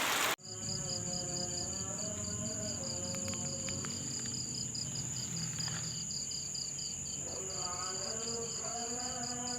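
Crickets or other night insects: a steady high-pitched drone with rhythmic chirping about five times a second, and a distant voice chanting in long, drawn-out notes under them. The first moment holds the tail of steady rain, which cuts off suddenly.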